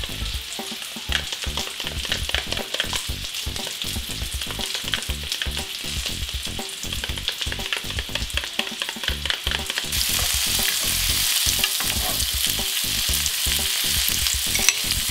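A spoon stirring and scraping mayonnaise and ketchup together in a small glass bowl, with quick clicks over the steady sizzle of frying. About ten seconds in, the sizzle of bacon, pineapple rings and red onion on a ridged grill pan comes up louder and takes over.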